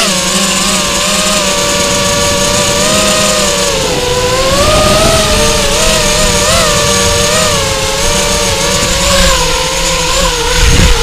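Electric RC car's motor and gearing whining, the pitch rising and falling as the throttle changes, over the rumble of its tyres on grass and pavement.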